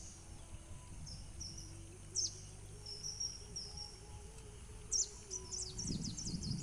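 Small birds chirping: sharp, high, downward-sliding chirps and a few short whistled notes, then a quick run of chirps near the end, over a low rumble.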